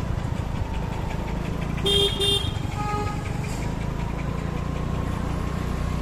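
Street traffic heard from a moving vehicle: a steady engine and road rumble, with two short horn toots about two seconds in, followed right after by a fainter, higher horn beep.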